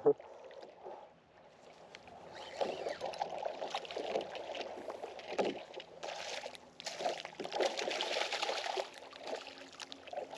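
Hooked striped bass thrashing at the water's surface beside the boat, in repeated bursts of splashing from about two seconds in.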